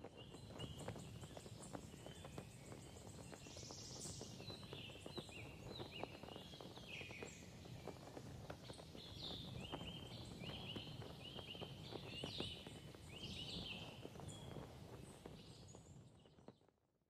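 Faint outdoor ambience: songbirds singing many short, repeated chirps over a low rumble, with scattered clicks; it fades out near the end.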